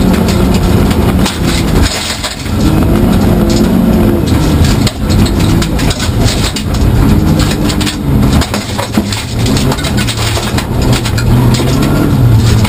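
Rally car's engine heard from inside the cabin, revving up and dropping back again and again with brief dips in loudness, over a constant rattle of gravel under the car.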